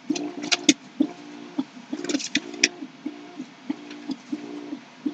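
Quiet music with a low two-note figure repeating evenly about every two-thirds of a second. A few sharp clicks sound near the start and again around two seconds in.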